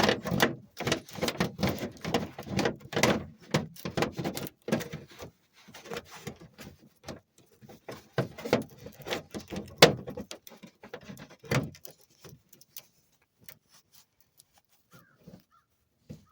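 Irregular clicks, knocks and rattles of hands and a tool working on a plastic fog light housing. They come thick and fast for most of the time, then thin out to a few scattered clicks.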